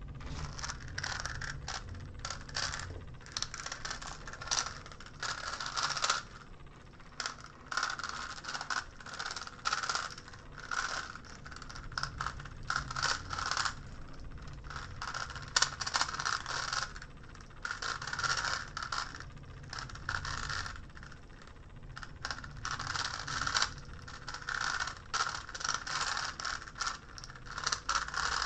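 GAN Megaminx speedcube being turned fast during a timed solve: rapid plastic clicking and clacking of face turns in quick bursts, broken by short pauses.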